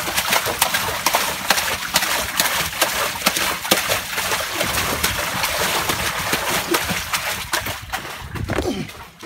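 Hands churning water in a hatchery tank, a dense run of irregular splashes and sloshing that dies away near the end.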